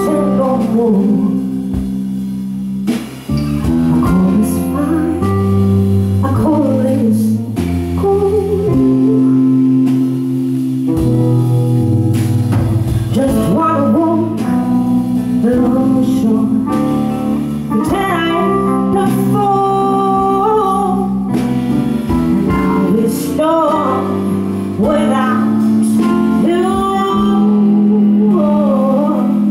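Live band performance: a woman singing a slow soul song in English over electric guitar and low held chords.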